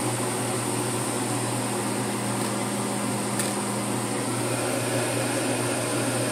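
Steady hum and whir of a running electric motor or fan, with one faint click about three and a half seconds in.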